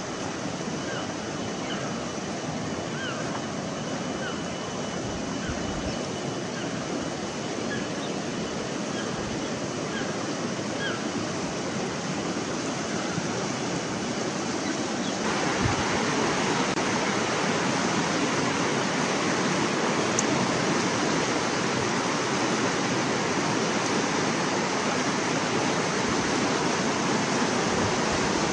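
River water rushing over a stony bed: a steady wash of noise that grows louder and brighter about halfway through. Faint short chirps come through in the first half.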